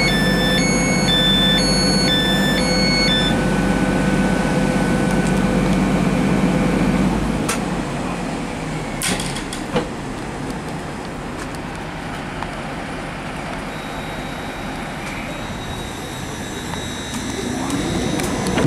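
Standing GWR Intercity Express Train (Class 800/802): a repeating pattern of electronic beeps for the first few seconds, over a steady low hum from the train's equipment that drops away about seven seconds in. Near the end the door-open button is pressed and the sliding door's mechanism starts up with a rising whine.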